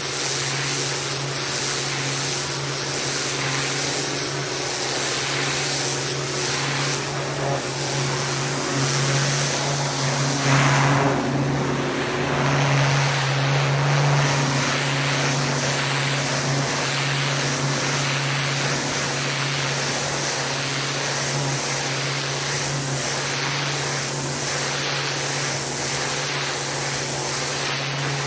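Pressure washer running steadily: a constant motor drone under the hiss of the water spray, which swells briefly about ten seconds in.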